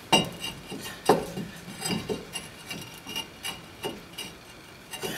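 Brake rotor being turned by hand on the wheel hub to line up its screw holes: metal scraping with a few sharp clinks, the loudest near the start and about a second in.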